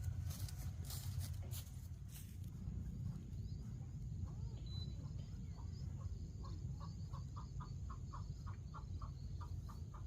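Chickens clucking: a run of short, evenly spaced clucks, about three or four a second, starting about halfway through. Underneath is a steady low rumble, and there are a few sharp clicks in the first two seconds.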